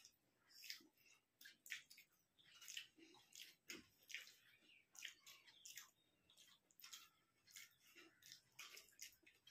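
Faint, irregular wet clicks and squishes of eating with the hands: rice being mixed with the fingers on steel plates, and chewing.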